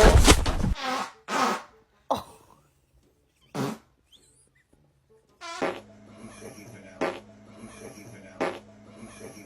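A run of short fart sounds, four separate blasts in the first four seconds. About halfway a steady hum starts, with three more brief sharp bursts over it.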